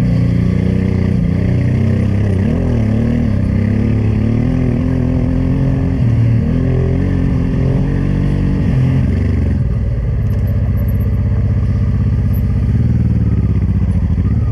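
Honda Transalp 600's V-twin engine under way on a dirt trail, its revs rising and falling with the throttle. About nine and a half seconds in it settles to a lower, steadier beat.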